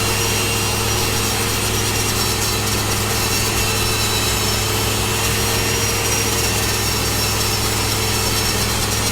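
Angle grinder running steadily against the weld, buffing it clean between welding passes, with a steady high whine over a rough grinding noise.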